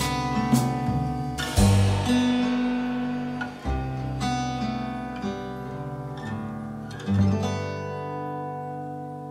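Background music on acoustic guitar, picked notes and strummed chords, ending on a chord that rings out and slowly fades.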